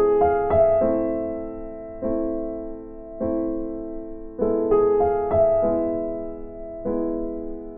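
Background piano music: a slow, gentle piece of chords struck about once a second and left to fade, with two short flourishes of quicker notes.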